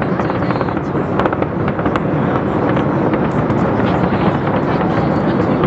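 Fireworks display going off in a dense, continuous barrage of crackles and bangs with no pause.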